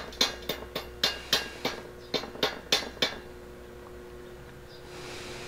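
Steel clamp used as a makeshift hammer, striking steel in a quick even series of ringing metal-on-metal taps, about three to four a second, that stop about three seconds in.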